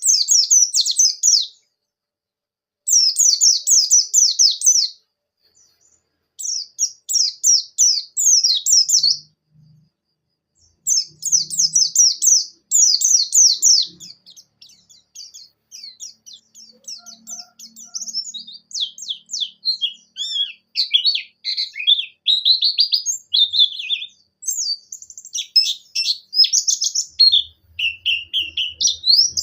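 White-eye (pleci) singing fast, high twittering phrases: three short bursts with brief pauses between them, then a long unbroken run that drops into lower, swooping notes near the end.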